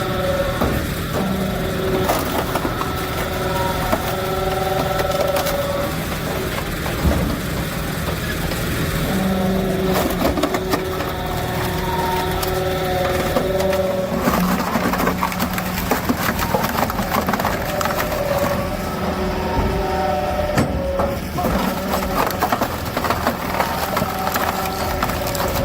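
Heavy machinery engine running under load, with stretches of wood cracking and crunching.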